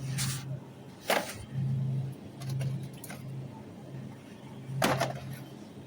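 Three brief rustling clatters of handling, over a steady low hum that keeps cutting in and out.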